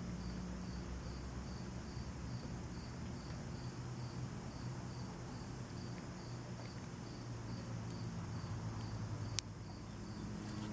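A cricket chirping steadily in an even pulse, with a low hum underneath. About nine seconds in comes a single sharp click from the lock pick working in the padlock.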